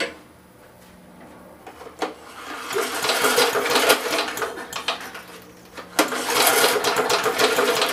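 Briggs & Stratton Classic lawn mower engine cranked over twice with the recoil starter rope, a whirring mechanical pull each time, during a spark check.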